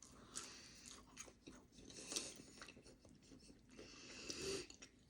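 A person chewing a piece of vegetable tempura: faint, irregular soft crunches and mouth sounds, a little louder about two seconds in and again near the end.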